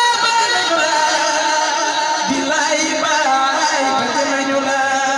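A woman singing a Wolof religious praise song into a microphone, drawing out long, ornamented notes that bend in pitch.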